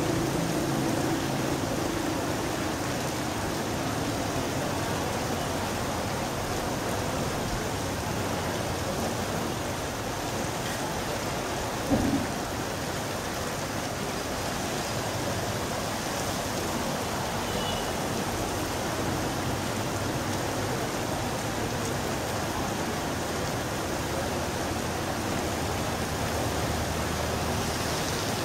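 Steady rain falling on a street, an even hiss. A vehicle's low engine hum fades out over the first few seconds, and a single short thump stands out about twelve seconds in.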